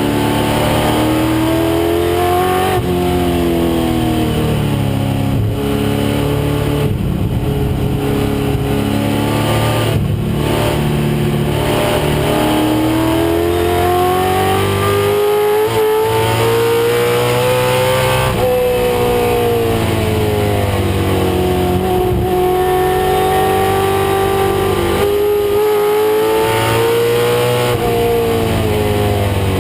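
A 1996 Ford Mustang race car's engine under racing load. The revs climb steadily, then drop back at shifts and braking, several times over.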